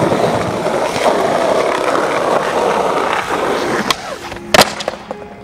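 Skateboard wheels rolling steadily over smooth concrete paving. Near four seconds in, the tail pops with a sharp snap, and about half a second later the board comes down with a loud clack.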